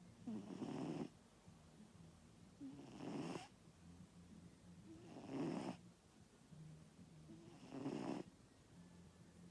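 Snoring in a slow, even rhythm: four louder snores about two and a half seconds apart, with quieter breathing between them.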